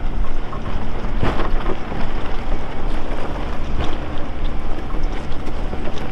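Lifted Nissan Pathfinder R50's engine running steadily at low speed on a rocky trail, with a few sharp knocks and rattles, one about a second in and another near four seconds, from the tyres and suspension on rocks.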